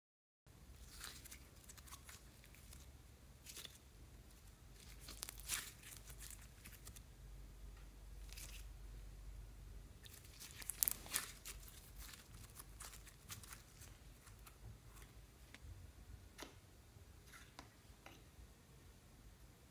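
Faint sticky clicks and crackles of orange slime being squeezed and stretched by hand, with a louder cluster about eleven seconds in.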